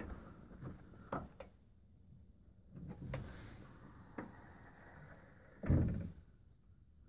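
2014 Ram pickup tailgate, fitted with a DeeZee tailgate assist damper, being worked by hand: a few light clicks and knocks, then one heavy, low thud of the tailgate near the end.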